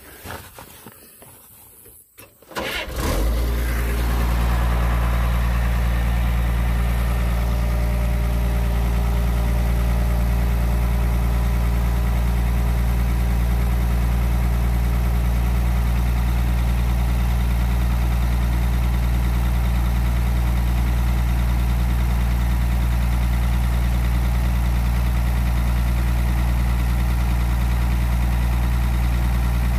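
Komatsu PC220LC excavator's diesel engine starting about three seconds in, catching quickly and settling into a steady idle.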